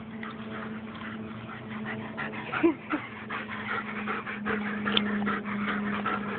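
German Shepherd dog giving two short whimpers about two and a half seconds in, with rustling as it is petted and handled, and a brief sharp sound about five seconds in. A steady low hum runs underneath.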